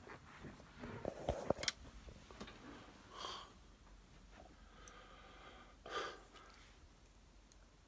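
A man hiccuping twice, a few seconds apart, each a short sharp catch of breath, with quiet breathing between. A few sharp clicks come about a second in.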